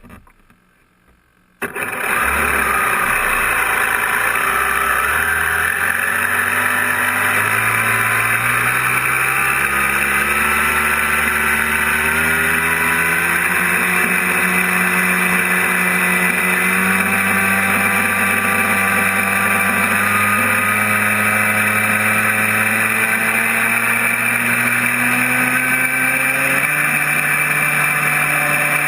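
RC jet boat's 3400KV inrunner brushless motor and 2:1 reduction gearbox running under a constant rushing noise, starting suddenly about two seconds in. The whine's pitch drifts up and down with the throttle.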